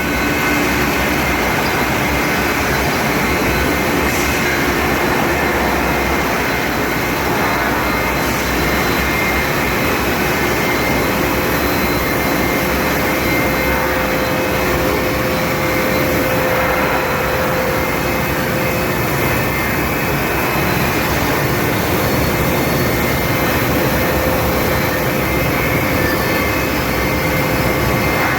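Steady, loud machinery noise of a steel-pipe induction hardening and tempering line running: a dense, unbroken din with a few faint steady tones running through it.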